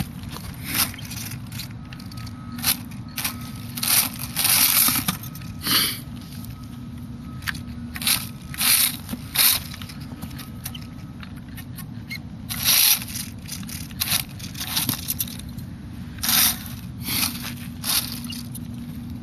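Dry leaves, pine needles and twigs crunching and scraping in irregular loud bursts as a small electric RC truck drives through forest litter. A steady low hum runs underneath, and a faint thin whine is heard through the first half.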